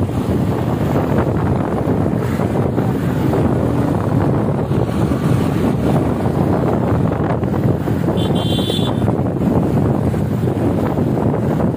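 Wind rushing over the microphone of a moving motorcycle, with the bike running underneath. A brief high-pitched tone sounds about eight seconds in.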